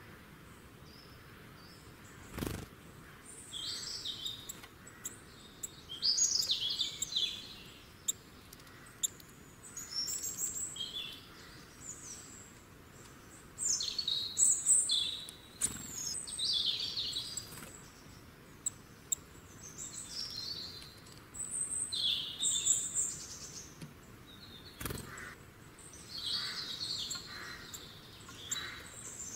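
Small birds chirping: many short high calls in irregular bursts, over a faint steady outdoor background, with two brief knocks, one near the start and one near the end.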